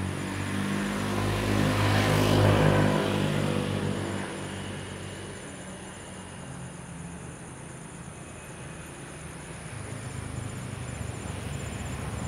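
A motor vehicle passes, its engine noise swelling to a peak about two seconds in and fading away by four seconds. The engine noise rises again faintly near the end.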